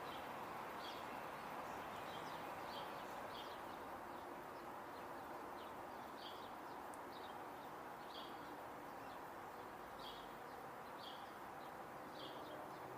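Faint background of a bird chirping: short high chirps about once a second, irregularly spaced, over a steady low hiss of ambient noise.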